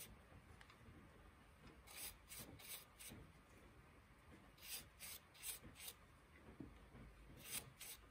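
Faint, short rubbing strokes on the polished wooden goblet, in three brief clusters of three or four strokes, about two, five and seven and a half seconds in, against near silence.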